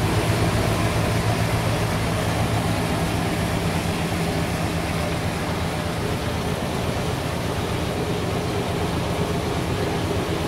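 Sawmill machinery running steadily: a low engine hum under a dense mechanical rush. The hum eases slightly after about six seconds.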